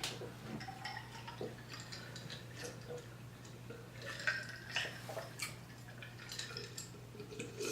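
Faint, scattered small clicks and light knocks over a steady low hum.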